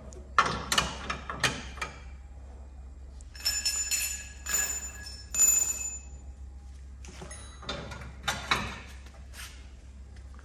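Metal car parts and hand tools clanking and knocking as a front crash bar is fitted, in four short bursts; the two middle bursts carry a ringing metallic clink.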